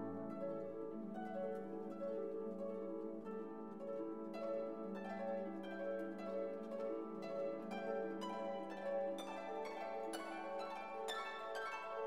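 Instrumental background music: plucked notes over sustained chords, the plucking growing busier partway through.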